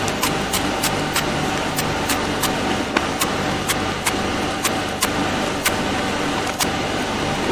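Machete chopping into the green husk of a young coconut against a wooden block, sharp even strokes about two to three a second, over a steady machine hum.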